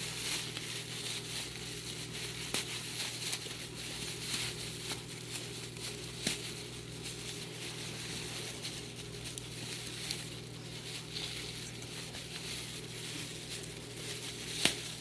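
Plastic fish-shipping bags and packing being handled and opened, crinkling with scattered small clicks and crackles over a steady low hum.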